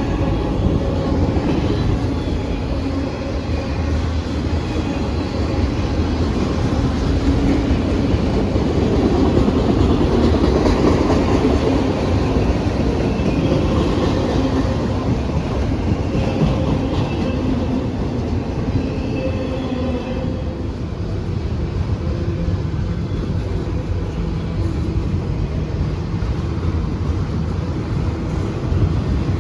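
Norfolk Southern freight train's cars rolling past on the rails, a steady, unbroken rumble.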